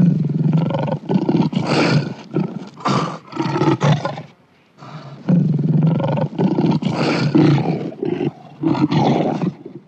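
Lion roaring in two bouts of repeated, low roars, with a short break about halfway through.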